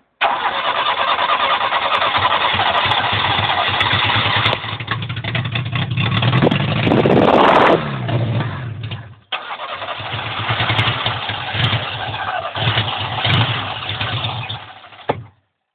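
Zastava Yugo's four-cylinder engine running loud with the hood open, rising and falling once in a rev about seven seconds in. It falls away almost to nothing, is running again about nine seconds in, then fades and cuts out near the end as the engine, which ran out of petrol, dies.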